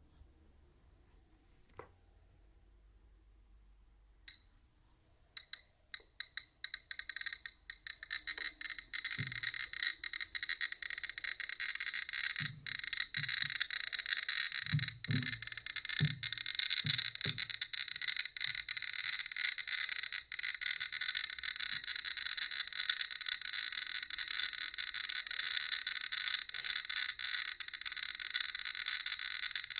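GQ GMC-500+ Geiger counter clicking once for each detected count. At background there are a few scattered clicks, then from about five seconds in they speed up into a dense, continuous crackle as a radioactive rock is held against it, with the count rate climbing into the thousands per minute. A few low thuds come in the middle.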